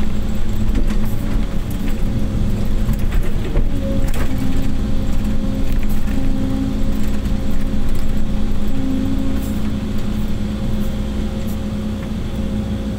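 Mini excavator's diesel engine running with the steady whine of its hydraulics, heard from the operator's seat as the boom and bucket dig; the whine shifts in pitch as the load changes. A few knocks about four seconds in.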